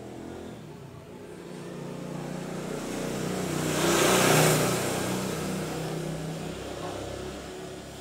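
A motor vehicle passing on a nearby road: its engine and road noise build steadily, are loudest about four seconds in, then fade away.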